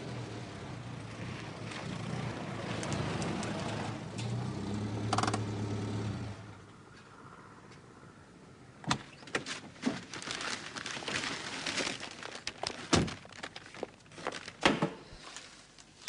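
A small car's engine, a Mini Clubman estate, running as it pulls in, swelling briefly and then switched off about six seconds in. A scatter of sharp clicks and knocks follows: the car's door and fittings being worked after it stops.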